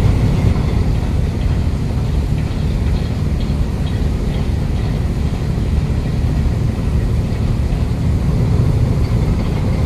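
Ship's diesel engine running steadily, a loud, constant low rumble with no change in pace.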